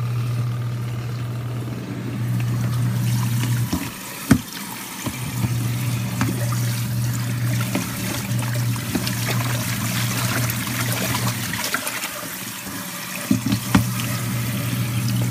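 Portable twin-tub mini washing machine running: a steady motor hum with water swishing in the tub. The hum cuts out briefly twice, and a few sharp knocks come through.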